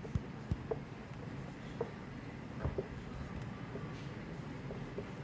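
Felt-tip marker writing on a whiteboard: faint, scattered short squeaks and taps as the tip strokes and lifts.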